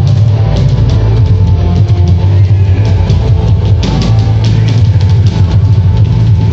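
Loud, fast rock-style song with a heavy drum beat and strong bass, playing from a Pump It Up dance arcade machine's speakers during play.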